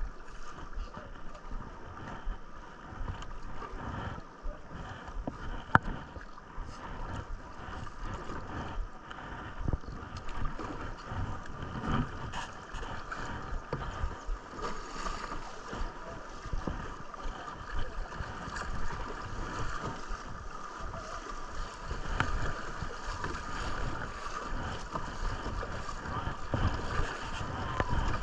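River water rushing and splashing around a kayak, with irregular low knocks and one sharp knock about six seconds in.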